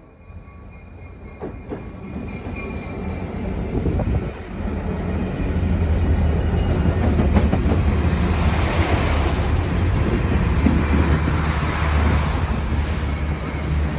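Diesel locomotive of a passenger train arriving and passing close by, its rumble growing louder over the first several seconds and then holding steady as the coaches roll past, with brief high wheel squeals near the end.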